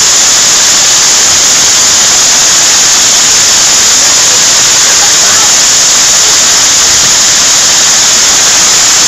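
Heavy hail pouring down in a severe hailstorm: a loud, steady rushing hiss with no break.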